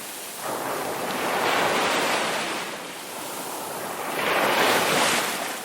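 Ocean surf on a beach: waves breaking and washing up, in two swells a few seconds apart.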